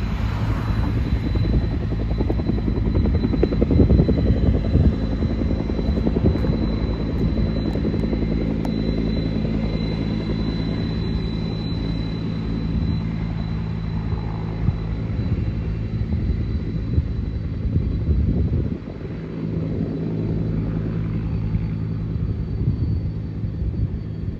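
Twin-engine widebody jet airliner taxiing, its engines at low taxi power: a steady low drone with a thin high whine over it, dipping briefly about three-quarters of the way through.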